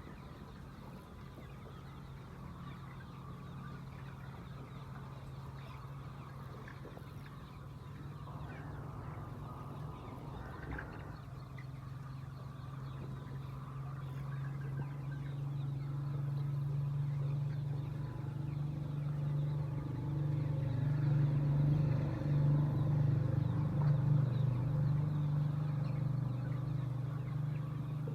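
A flock of laying hens clucking over a steady low hum, which grows louder through the second half.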